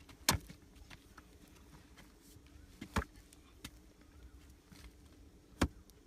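Hoes chopping into hard, dry earth: three loud strikes about two and a half seconds apart, with fainter knocks between them.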